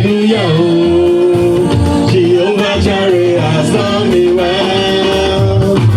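Church praise music at full volume: a held, gliding melody, sung, over a steady bass line and regular percussion.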